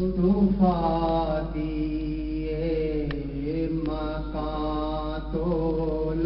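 A man's voice chanting devotional Islamic verse into a microphone, unaccompanied, in long held notes that bend in pitch, with short breaths between phrases. A steady low hum runs underneath.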